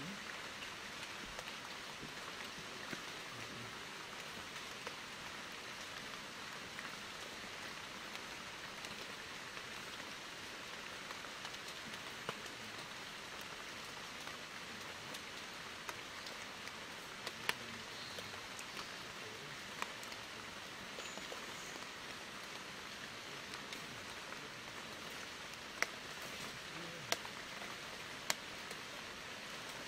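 Steady, even hiss with no pitch to it, like light rain, broken by a few scattered sharp ticks, most of them in the last few seconds.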